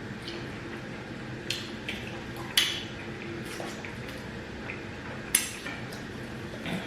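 A few sharp clinks of dishes and cutlery during a meal, the loudest about two and a half seconds in and again past five seconds, over a low steady background.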